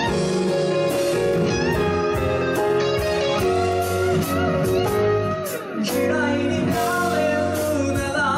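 Live band playing a slow pop ballad: electric guitar lead line with bent notes over keyboard, bass and percussion, with a male voice singing in the second half.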